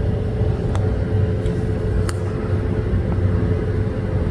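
Steady low rumble with a faint constant hum underneath it, and a few light clicks.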